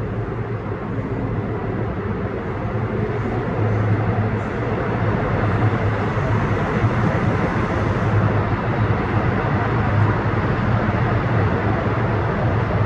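Seoul Subway Line 4 electric train running through an underground station without stopping: a steady rumble of wheels on rails, louder from about four seconds in as the cars pass close by.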